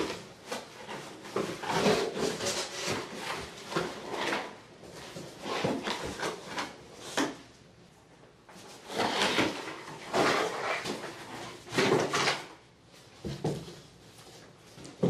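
Cardboard side panels of a shipping carton being pulled away and handled: a run of rustles, scrapes and knocks, with a short lull about halfway through.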